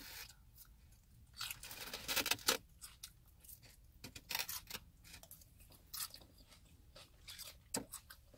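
A person chewing food with faint, irregular crunches and mouth clicks, close to the microphone.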